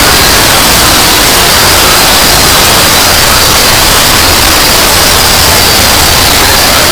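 Very loud, heavily distorted noise, like static, filling every pitch from low to high and holding steady with no pauses.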